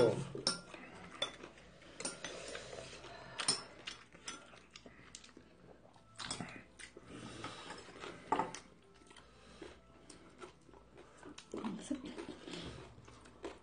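Chopsticks and utensils tapping and clicking against dishes in short, scattered strikes, with a few light clatters, as food is picked at during a meal.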